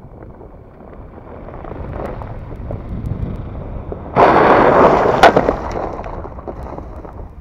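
Ford Ranger Raptor pickup driving up to the camera on a muddy track, its engine and tyre noise growing louder. About four seconds in comes a sudden loud rush of water spray as it splashes through a puddle and passes, with one sharp crack in the middle, dying away over about two seconds.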